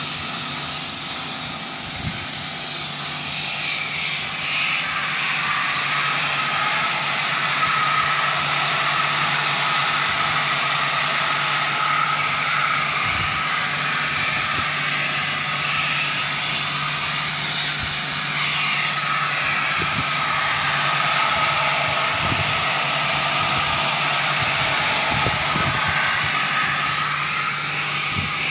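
Pressure washer jet spraying water into the fins of an air compressor's aftercooler core, making a steady hiss with a low hum underneath.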